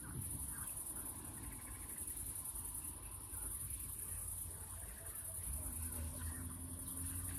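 Crickets chirping in a steady, high-pitched chorus with a fast pulsing trill, over a faint low rumble.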